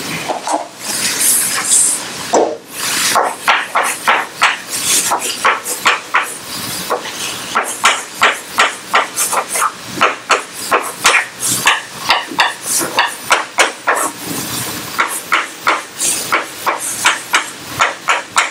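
Chalk writing on a blackboard: a quick, uneven run of sharp taps with short scratchy strokes between them as characters are written.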